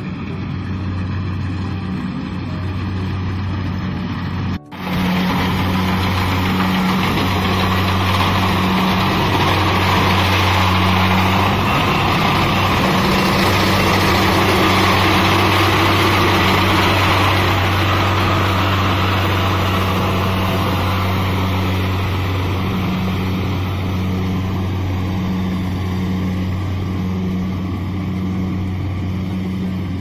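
Kubota DC-70 rice combine harvester's diesel engine running steadily under load while cutting rice, a constant low hum with a broad mechanical rushing noise over it. There is an abrupt break about four and a half seconds in; after it the machine is louder, loudest around the middle and easing off near the end.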